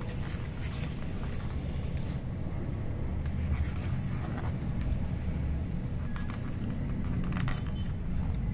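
Glossy pages of a large book being turned by hand, a few short rustles and crackles, over a steady low rumble.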